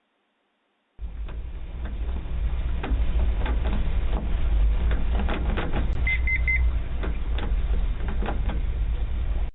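Outdoor background rumble picked up by a video doorbell's microphone, starting about a second in, with scattered clicks and knocks. Three short high electronic beeps sound about six seconds in.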